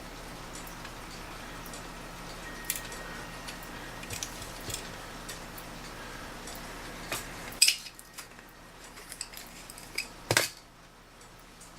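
Small metal clinks and taps from clock parts and tools being handled, irregular rather than a steady tick, with a sharper knock about two-thirds in and another near the end. A low background hum stops at the first of these knocks.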